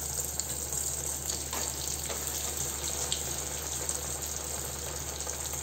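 Breadcrumb-coated cheese kebabs deep-frying in hot oil, the oil sizzling and bubbling steadily.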